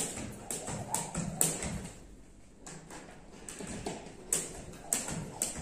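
A skipping rope slapping a tile floor with each turn, about twice a second, stopping about a second and a half in; a few single taps follow near the end.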